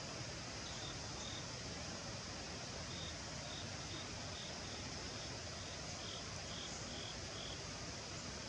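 Outdoor insect chorus: a steady high buzz over a low, even rush of background noise, with a dozen or so short high chirps, about two a second, from about a second in until near the end.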